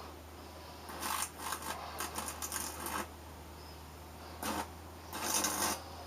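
Irregular crackling, fizzing bursts from a CFL circuit board being overpowered, where an electrolytic capacitor has been venting, over a steady low electrical hum. One stretch of crackling runs about one to three seconds in, and a second comes in two spurts near the end.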